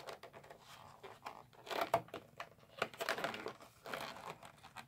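Plastic and cardboard product packaging crinkling and crackling as booster packs are pulled out of it, in irregular short snaps.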